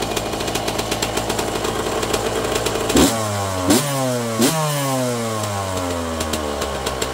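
Two-stroke dirt bike engine idling, then three quick throttle blips about a second in from the middle, each rev dropping back toward idle.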